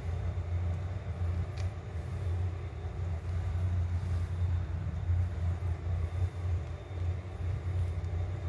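Steady low hum with a rushing noise underneath, running evenly throughout.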